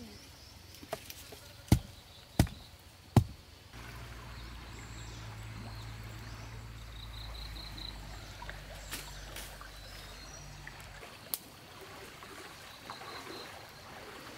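Chopping: four sharp blows, each a little under a second apart, then water running steadily with a low rumble for about seven seconds.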